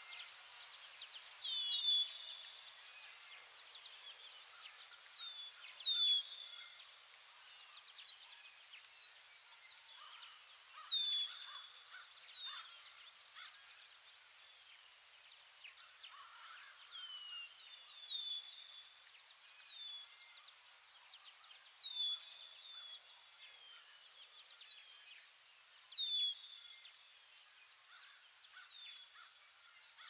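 Woodland nature ambience: a steady, high, rapidly pulsing insect trill, with songbird chirps, short downward-sliding notes often in pairs, coming every second or two.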